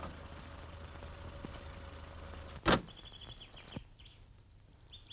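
A truck's door or tailboard bangs shut once, loudly, about two and a half seconds in, over a steady low hum on an old film soundtrack. Birds chirp after the bang.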